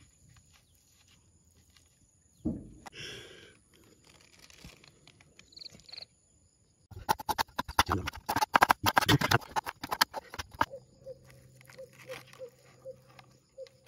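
Rustling and crackling handling noise as raw fish slices are pressed and scooped across a large green leaf with fingers and a cleaver. It is sporadic at first and turns into a dense run of crackles for about three seconds in the middle. After that a faint steady pulsing tone is heard.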